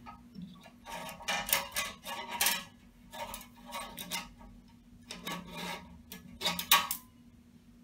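Metal shim spring being worked out of its groove in the end of a fibreglass pressure vessel. It scrapes and clinks in a run of short, irregular bursts as it is pulled around the rim.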